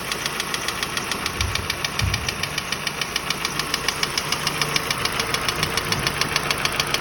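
Hyundai Sonata's 2.4-litre G4KC inline-four running steadily with a rapid, even knock from the engine. The knock persists despite new timing-chain tensioners and a replacement cylinder head, with normal oil pressure, and its cause is unknown to the owner, who first suspected the valves.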